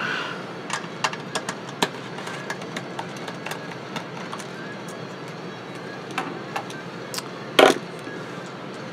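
Scattered small clicks and taps of screws and oscilloscope parts being handled during disassembly, with one louder knock about seven and a half seconds in.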